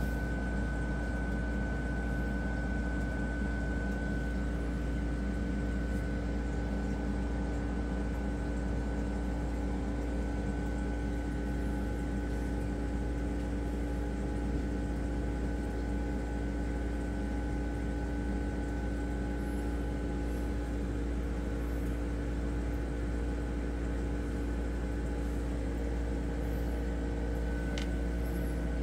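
A reef aquarium's pumps and equipment running: a steady low hum with a few constant tones held over it.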